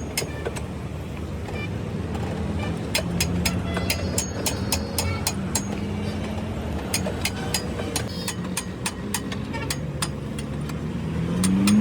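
Repeated sharp hammer blows on metal, several a second, some with a metallic ring, over a steady vehicle engine drone whose pitch rises near the end.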